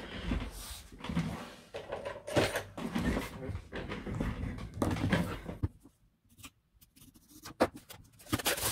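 Handling noise as a watercolour paper pad's packaging is opened: irregular rustling for the first five seconds or so, a short pause, then a few sharp clicks near the end.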